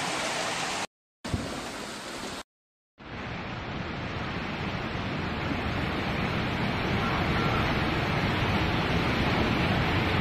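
Steady rushing noise of heavy rain in two short clips, each cut off abruptly, then from about three seconds in the continuous roar of fast brown floodwater churning through a street, growing slightly louder.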